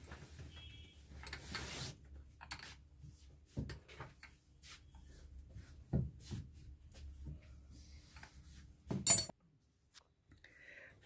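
Handling of a starter motor's metal parts as its assembly is finished: scattered clicks, knocks and rubbing, with a sharper knock about six seconds in and a louder clatter about nine seconds in. A low hum runs underneath and stops just after the clatter.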